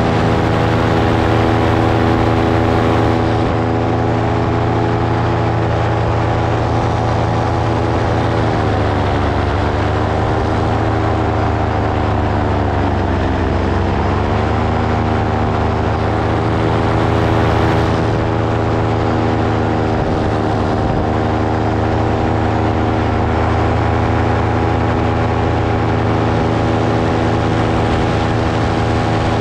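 Engine of a light propeller aircraft running steadily. Its pitch drops as it is throttled back about a third of the way in, then rises again to the earlier steady note.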